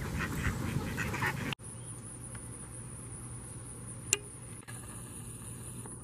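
Mallard ducks quacking in a quick run of short calls, cut off abruptly about a second and a half in. After that comes a much quieter steady high-pitched whine over a low hum, with a single click about four seconds in.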